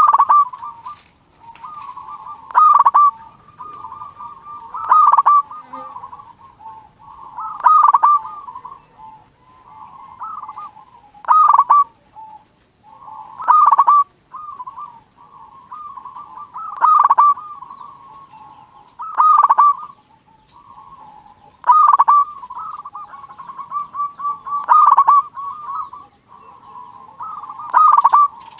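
Zebra dove (perkutut) cooing over and over: a loud coo phrase about every three seconds, with softer cooing running between them.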